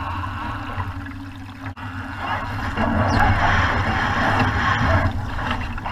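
Water rushing and splashing along the hull of a VX One sailboat under way, over a steady low rumble of wind on the microphone. The rush of water grows louder a little under halfway through.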